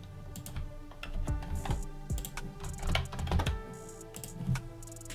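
Computer keyboard keys tapping and clicking in irregular bursts, with quiet background music underneath.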